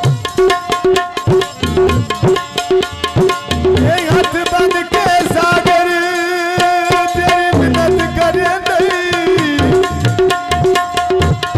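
Punjabi folk mahiya music: hand drums play a steady, fast rhythm with sliding bass strokes. A man's voice sings one long, wavering held note through the middle.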